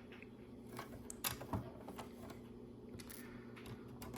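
Faint clicks of small plastic LEGO pieces being handled, a few scattered ticks over a steady low hum.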